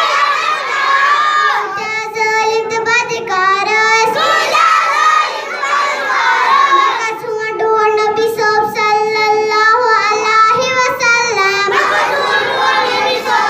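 A young boy singing into a handheld microphone: two long phrases of drawn-out, wavering held notes, with busier, speech-like vocal passages between them.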